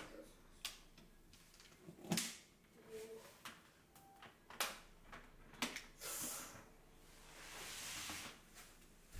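Light knocks and clicks of small plastic household items and a cord being handled and put into a plastic storage bin, then a longer soft scraping hiss from about six seconds in as the bin slides across tatami matting.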